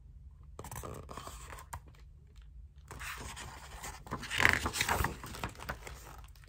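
A large hardcover picture-book page being handled and turned: paper rustling and scraping, loudest about four and a half seconds in.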